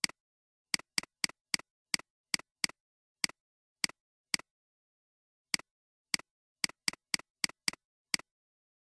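Computer mouse button clicks, about nineteen of them at an uneven pace, some in quick runs of three or four a second, with a pause of about a second near the middle.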